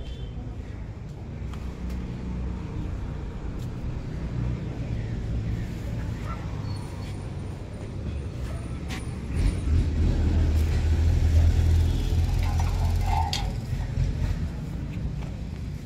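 Royal Enfield Classic 350's single-cylinder engine idling with a steady low rumble, which grows louder about ten seconds in. A sharp metal clank near the end comes from the latch of an iron gate.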